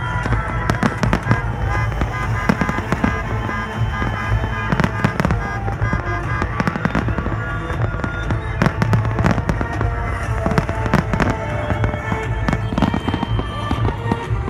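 Fireworks display going off rapidly, a dense run of irregular bangs and crackles, with music playing underneath.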